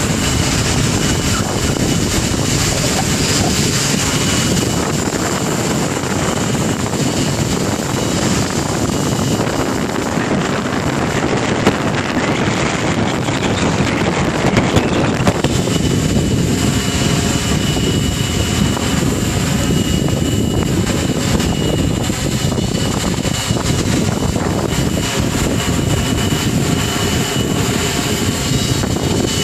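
Octocopter drone's propellers whirring with a steady high motor whine, over a heavy rumble of wind on the microphone. The whine fades for a few seconds around the middle, then returns.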